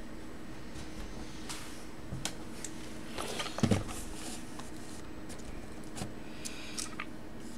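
Sealed cardboard card boxes being handled and set down on a desk mat: scattered light taps and rustles, with one louder knock about halfway through, over a steady low hum.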